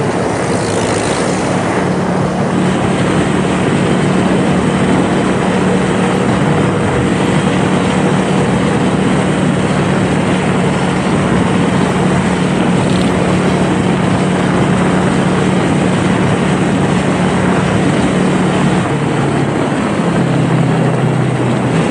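Motorcycle engine running at a steady cruising speed over a loud, steady rushing noise, its note dropping lower near the end.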